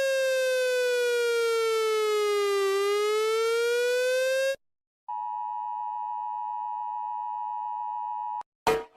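Emergency alert tones. A South Korean alert tone, buzzy and full of overtones, glides slowly down in pitch and back up, then stops. After a short gap, the United Kingdom emergency alert's steady two-tone attention signal holds for about three seconds and cuts off. A loud new alert sound (Italy's) starts right at the end.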